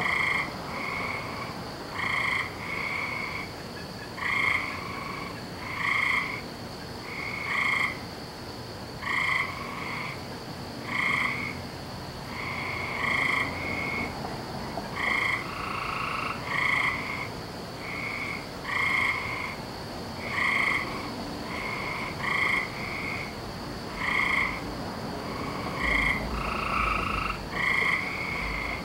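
Frogs croaking in chorus: short calls repeating roughly once a second, over a steady high-pitched hum.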